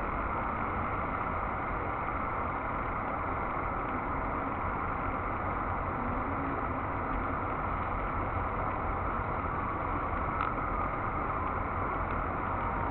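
Steady hum of a mass of honeybees at a hive entrance, with a low rumble underneath.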